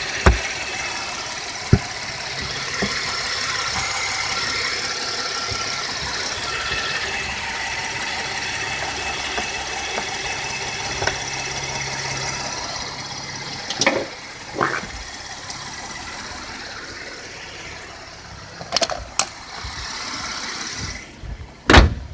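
Chevrolet 3.6-liter V6 idling steadily, with a few sharp knocks in the second half, the loudest near the end.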